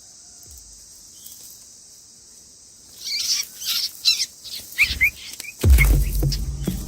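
Steady high insect buzz, then from about three seconds in a small bird chirping rapidly and loudly in quick, repeated calls. Near the end, music with deep bass comes in over the calls.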